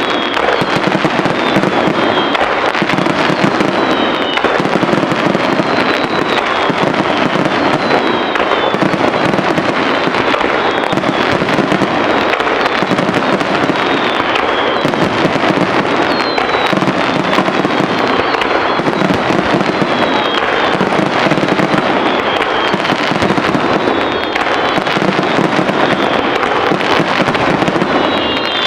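Aerial fireworks bursting in a dense, continuous barrage, bangs and crackle overlapping without a break, with short high whistles cutting through now and then.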